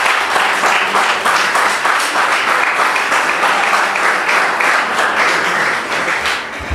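Audience applauding a correct quiz answer: many hands clapping together in an even, continuous patter that dies down near the end.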